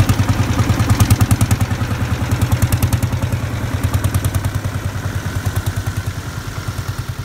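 Vintage tractor engine running with a steady, slow pulsing beat of about ten beats a second, fading gradually as the tractor drives past and away.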